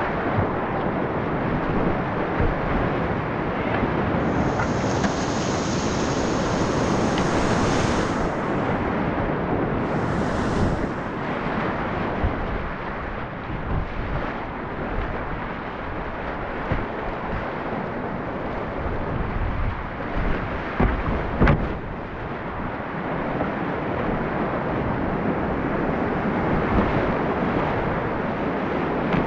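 Whitewater rapids rushing steadily around a kayak, with wind noise on the microphone. A few brief knocks about two-thirds of the way through.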